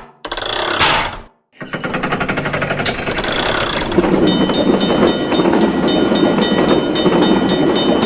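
Cartoon sound effects: a short crash about a second in, a brief gap, then a fast rattle that becomes a steady clattering noise with a thin ringing tone from about four seconds in.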